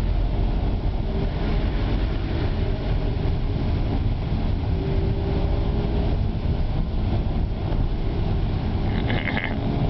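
Steady engine and road noise heard from inside a moving vehicle on a wet street, a dense low rumble with tyre hiss above it. A short, higher-pitched sound comes in about nine seconds in.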